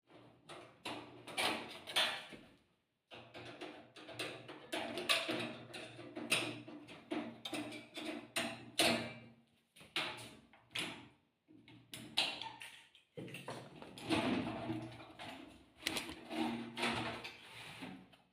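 Irregular knocks, clicks and clatter of hard parts being handled, with a faint steady hum underneath.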